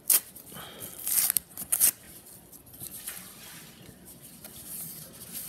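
Yellow kraft padded bubble mailer being wrenched and torn by hand: sharp paper rips right at the start, around a second in and near two seconds, then quieter crinkling and rustling as the stubborn envelope resists opening.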